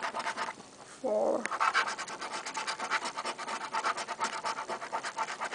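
A coin scratching the coating off a paper scratch-off lottery ticket in rapid back-and-forth strokes. The scratching stops briefly about half a second in, and a short low sound comes just before it resumes.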